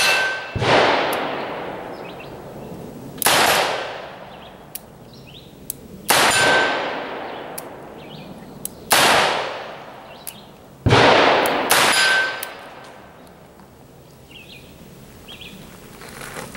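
Six shots of .44 Special fired double action from a Smith & Wesson .44 Magnum revolver. The first four come about three seconds apart and the last two about a second apart, each followed by an echo that fades over a second or two.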